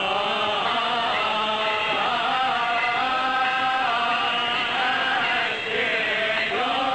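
Coptic Orthodox liturgical chant: a melismatic line sung on long, slowly wavering held notes, almost without a break.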